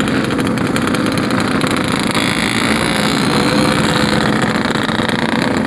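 Yamaha RX-King two-stroke motorcycle engine running steadily under way, its exhaust note holding an even pitch.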